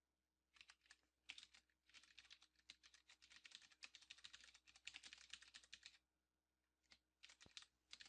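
Faint typing on a computer keyboard: a quick run of keystrokes, pausing for about a second before a few more keys near the end.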